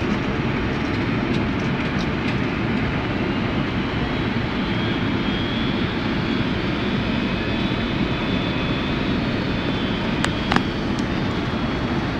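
Steady in-flight noise inside a Boeing 767 cockpit on descent: engine and airflow noise running evenly, with a couple of sharp clicks about ten seconds in.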